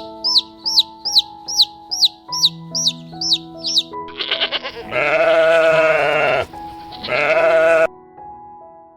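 A bird gives a run of quick, falling chirps, about two or three a second, over gentle piano music. About four seconds in, a sheep bleats twice, loud and wavering, the first bleat the longer.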